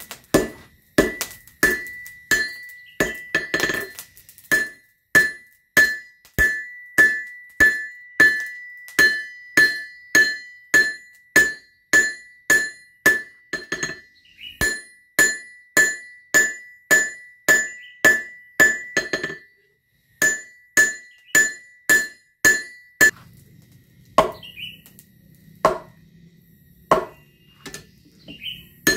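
Hand hammer striking steel on an anvil, about two blows a second, each with a bright ringing note, with a short pause partway through. Near the end come a few slower blows with a lower ring.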